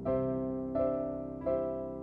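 Background music: soft piano playing slow chords, a new chord struck about every three-quarters of a second.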